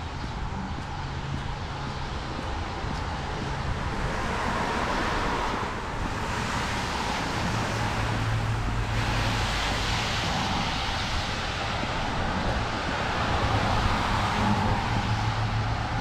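Cars passing on a wet road, their tyres hissing and swelling louder as each goes by, with wind buffeting the microphone.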